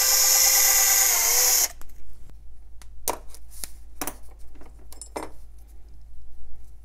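Cordless drill running steadily with a twist bit, drilling out a small post on a die-cast toy car's base, dipping slightly in pitch as it stops about one and a half seconds in. A few short clicks and knocks follow as the loosened part is handled.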